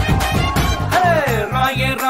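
Music: a Telugu dance song with a heavy bass beat. About a second in, a high note slides steeply down, followed by short bass pulses.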